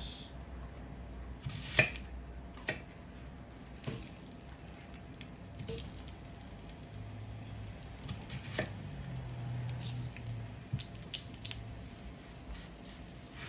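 Onion halves being set down on a hot grill pan: a few soft knocks over a faint sizzle of the fat in the pan.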